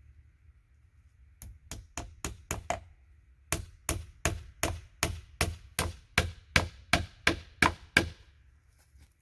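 Hammer blows on a log rail: a few light taps, then a steady run of about a dozen harder strikes at roughly three a second.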